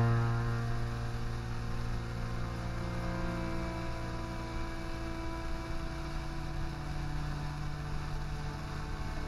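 Ambient electronic drone music synthesized in Kyma 7: layered, sustained tones that slowly fade in and out. A loud low drone eases off at the start, and a new low tone comes in a little past halfway.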